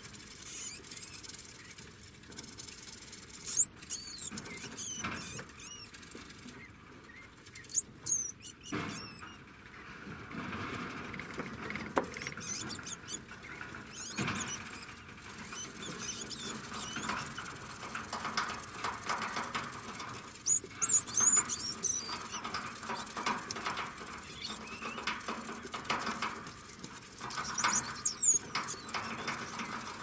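Degu giving short, very high-pitched squeaking calls, each a quick rise and fall in pitch. They come in four brief bouts, the busiest about two-thirds of the way through, with faint rustling between them.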